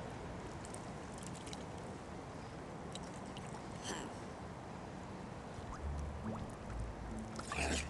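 Lake water gurgling and lapping as mute swans feed with their heads underwater, with small scattered splashes, low rumbles in the second half and a brief louder splash near the end.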